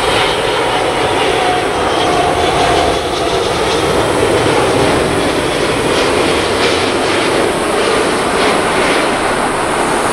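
Jet engines of an Airbus A380-861, its four Engine Alliance GP7270 turbofans, at approach power as the airliner passes low on final approach to land: a steady jet roar.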